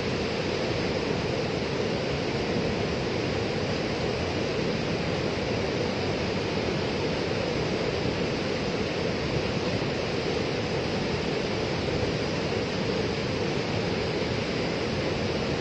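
Muddy floodwater from a breached dam rushing in a churning torrent: a steady, unbroken rushing noise of water.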